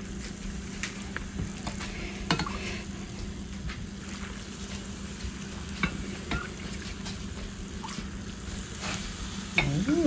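Hot rendered pig lard ladled over pork cracklings in a steel saucepan, crackling and sizzling with scattered sharp pops. A steady low hum runs underneath.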